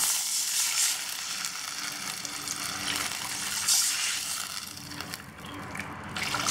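Water poured from a jug into a hot kadai of onions sautéed in oil, sizzling and hissing as it hits the oil. The hiss swells at the start and again about four seconds in, then dies down near the end.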